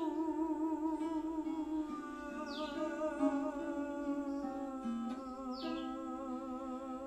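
Wordless humming on long held notes with a slow wavering vibrato, over a plucked string instrument; the notes shift in pitch about two seconds in and again about five seconds in.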